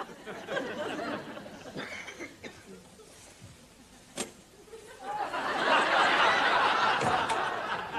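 Studio audience laughing, in scattered bursts at first and then swelling into loud laughter about five seconds in. There is a single sharp click or knock just before the laughter swells.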